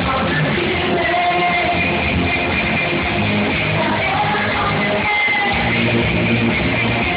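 Live rock music with a singer and electric guitar, echoing in a large hall, recorded through a phone's microphone.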